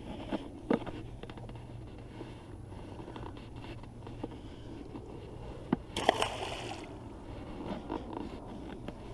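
A bass and its water tipped from a plastic bag back into the pond: a short splash lasting under a second about six seconds in, with a few light knocks and scrapes of handling around it.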